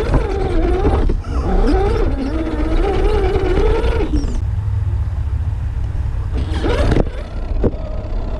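An Axial SCX10 III RC rock crawler's electric motor whines, its pitch rising and falling with the throttle. It stops about four seconds in, and two sharp knocks come near the end, over a steady low rumble.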